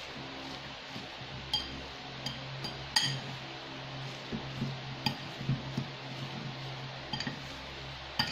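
Metal fork stirring a moist tuna and crushed-cracker mixture in a ceramic bowl: soft scraping and squishing, with a sharp ringing clink every second or two as the fork strikes the bowl.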